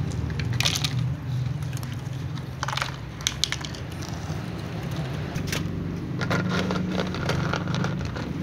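Several cats crunching dry kibble, with scattered clusters of short crunchy clicks from chewing and pellets knocking in plastic dishes, over a steady low hum.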